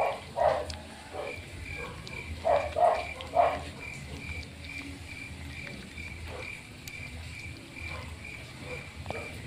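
Two puppies eating rice from a metal plate, with several short loud eating noises in the first few seconds. A faint high chirp repeats about twice a second in the background.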